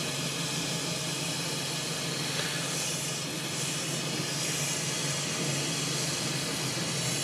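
Oxy-fuel brazing torch with a wrap-around Captain Hook tip burning with a steady, even hiss. It is heating a copper line into a compressor's brazing socket to braze the joint.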